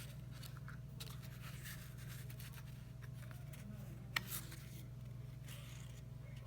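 Faint rustling of index cards being handled, with a small click about four seconds in, over a steady low hum.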